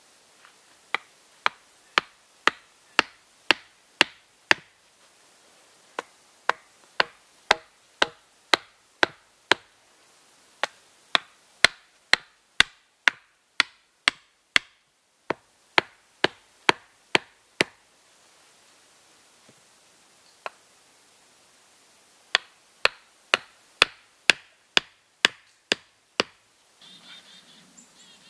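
Hatchet head pounding deadwood stakes into the forest floor: sharp wooden knocks about two a second, in runs of several strikes with short pauses between.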